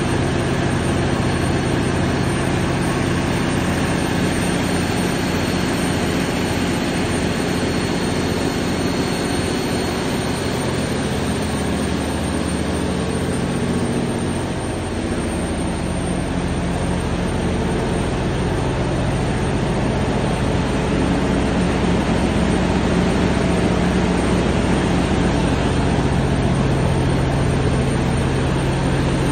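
Cummins KTA38 V12 diesel engine of a 1000 kW generator set running steadily under a load-bank test, a loud, even drone. It dips slightly about halfway through and is a little louder in the last third.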